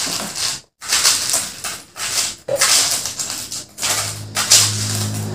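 Ice cubes clattering and scraping as they are spooned out of a plastic tub into a hollowed-out watermelon half, in a run of short rattling bursts. A steady low hum comes in about four seconds in.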